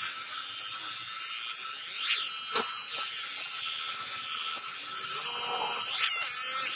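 Fiber laser marking machine engraving a metal plate: a high-pitched whine and buzz from its scanning head, shifting in pitch with quick sweeps as it traces the design.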